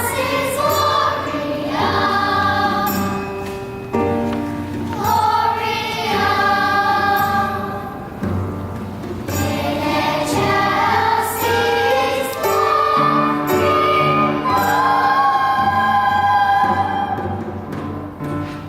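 A church choir singing, holding long notes that change every second or two.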